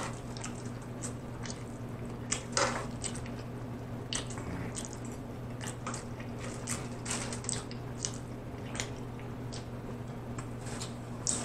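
Close-miked wet chewing and mouth clicks of someone eating macaroni and cheese, a scatter of short smacks and squishes over a steady low hum.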